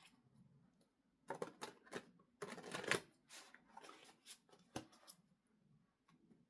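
Tarot cards being shuffled and drawn from the deck: a quick run of short card rustles, flicks and snaps starting about a second in and stopping a little after five seconds.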